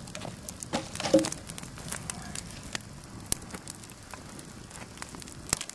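Wood campfire crackling, with irregular sharp snaps and pops from the burning wood.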